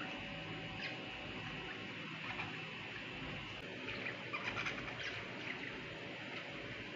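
Budgerigars chirping in short, scattered high calls, with a quick run of chirps in the middle, over a steady background hiss.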